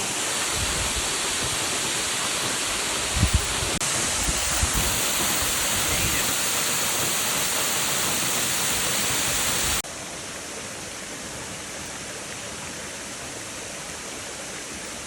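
Steady rush of falling water from a waterfall and creek, with a few low bumps about three seconds in; the rush drops abruptly to a softer level about ten seconds in.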